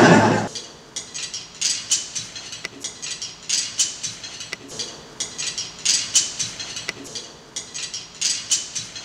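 Loose pieces of wood on a tabletop wooden xylophone artwork being struck and played by hand: irregular dry wooden clacks and clatters, coming in uneven clusters. A man's voice ends about half a second in.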